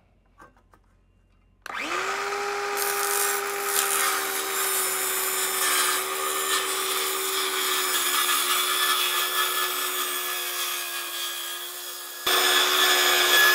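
Handheld circular saw starting up a couple of seconds in and spinning up to a steady whine as it cuts kerfs partway through a wooden planking strip. Its sound gets suddenly louder near the end.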